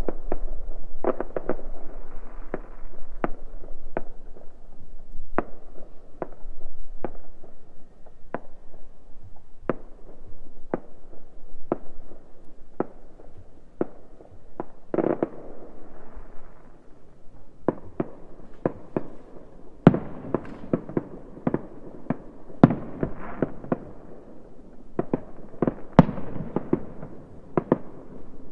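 Fireworks and firecrackers going off around the neighbourhood: many sharp, echoing bangs at irregular intervals, with a longer, louder crackling burst about halfway and the bangs coming thicker and louder in the last third.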